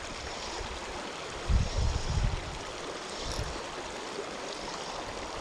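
Small mountain creek running steadily over rocks and cobbles, with a brief low buffeting about one and a half seconds in.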